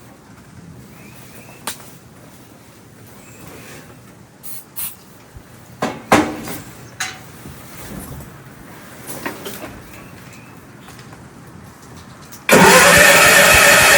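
Gravely tractor engine cold-starting on starting fluid: a few scattered clicks and knocks, then the engine catches suddenly near the end and runs loud and steady.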